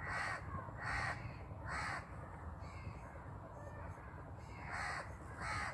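A crow cawing: three harsh caws in quick succession, a pause, then two more near the end, over a steady low rumble.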